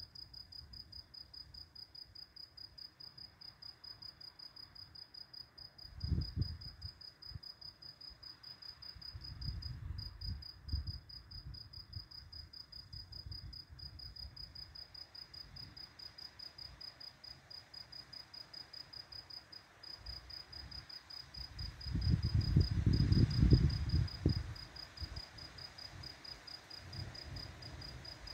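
A cricket chirping steadily, a high note pulsing at an even rapid rate without a break. Low rumbles swell under it a few times, the loudest lasting about three seconds near the end.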